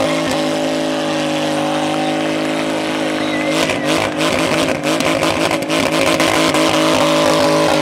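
Triumph Rocket III's 2.3-litre three-cylinder engine held at high revs through a stationary burnout, the rear tyre spinning and smoking on the asphalt. Its note is steady at first, then wavers and turns choppier from a little before halfway as the revs bounce.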